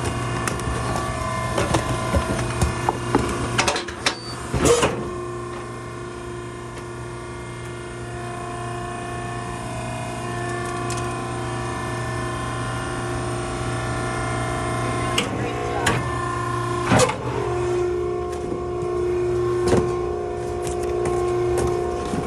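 Maren baler running with a steady machine hum, with a few sharp knocks about four to five seconds in and again near the seventeen-second mark, where the pitch of the hum shifts.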